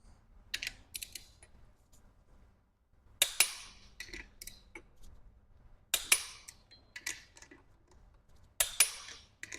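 Click-type torque wrench tightening the connecting-rod cap fasteners, giving a sharp double click each time it reaches the set torque, about every two and a half seconds, with lighter ratchet clicks between.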